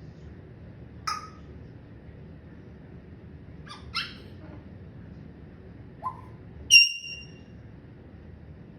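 Pet parrot giving five short calls: one about a second in, two close together near four seconds, one around six seconds, and a louder, clear whistled note near the end.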